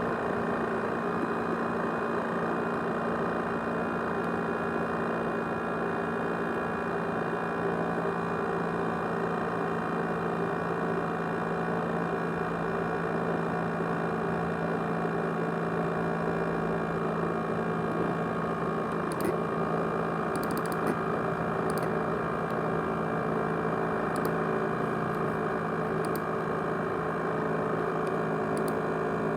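ASUS X543UA laptop and its 500 GB USB hard drive whirring steadily, with several fixed whining tones over a hiss, a sound likened to a jet engine. A few faint ticks come in the second half.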